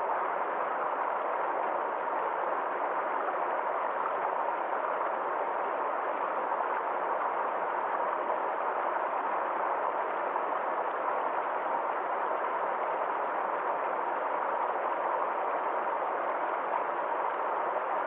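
Forest stream flowing steadily: a constant, even rush of water with no breaks.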